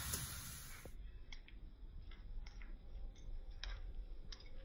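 About five faint, separate clicks and light taps of a plastic cup being handled while vinegar is poured from it into the volcano.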